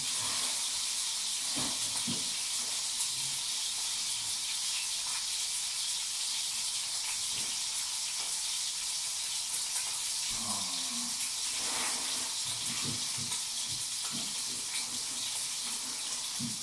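Brisket sizzling in a frying pan, a steady hiss, with a few faint knocks from kitchen utensils scattered through it.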